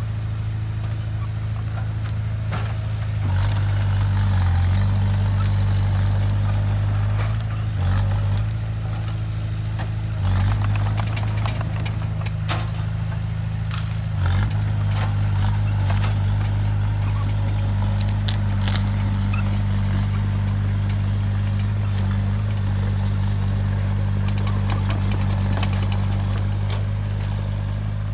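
Diesel engine of heavy earthmoving machinery running steadily, with occasional sharp clicks and knocks.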